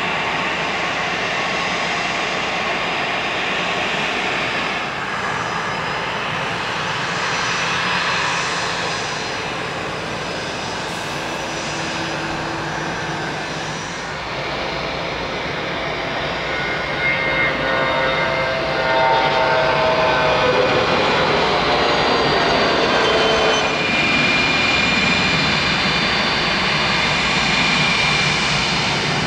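Business-jet turbofan engines: a steady jet rush and whine as a jet taxis. From about 18 s it grows louder, with several whine tones rising in pitch as a jet takes off and climbs away.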